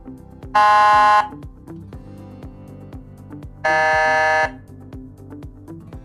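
Fury 30-watt motorcycle police siren speaker sounding two electronic air-horn tones: a short blast about half a second in, then a second, slightly lower blast about three and a half seconds in. Background music with a steady beat runs underneath.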